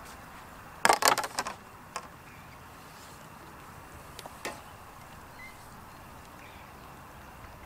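Plastic bait tubs and tackle on an angler's side tray being handled: a quick cluster of sharp clicks and rattles about a second in, then a few single clicks.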